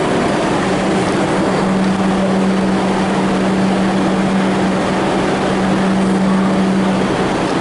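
Steady running noise of a vehicle, with a constant low hum over an even roar.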